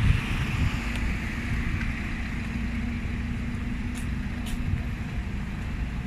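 Street traffic noise: a motor vehicle's engine running with a steady low hum, and two faint ticks about four seconds in.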